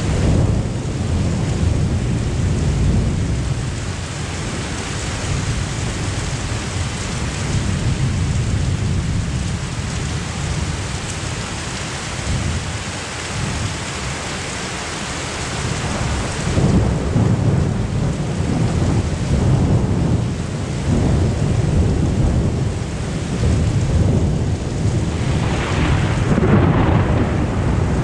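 Heavy rain from a sudden summer thunderstorm pours down in a steady hiss, with thunder rumbling low beneath it. The rumbling grows heavier a little past halfway through.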